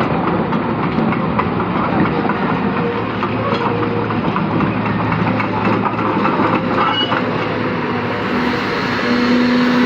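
Cat 320 GX excavator's diesel engine running steadily, with continuous metallic clatter from the machine at work. A hum grows stronger near the end.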